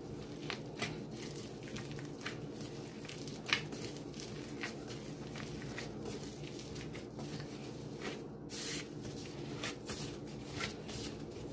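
Soft yeast dough being kneaded by gloved hands on a floured countertop: irregular squishes and soft pats as it is pushed, folded and turned. A faint steady hum runs underneath.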